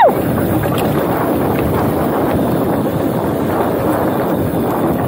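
Steady wind rush on the chest-mounted action camera's microphone during a fast mountain-bike descent, mixed with the tyres rolling over the dirt trail.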